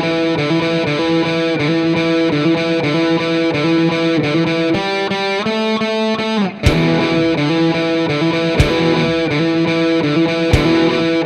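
Background music: distorted electric guitar with drums. About six and a half seconds in it briefly drops out with a falling glide, then comes back with a hit about every two seconds.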